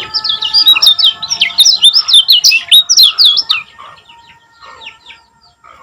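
Kecial kuning white-eye singing a fast, dense run of sharp down-slurred chirps in the 'ngejos' style. The song is loudest for the first three and a half seconds, then trails off into fainter, scattered notes.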